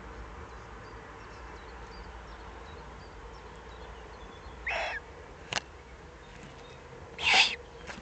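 Eurasian eagle-owl chick giving two short, harsh, hissing begging calls, one about five seconds in and a louder one near the end, with a single sharp click between them, over a steady faint hiss and hum.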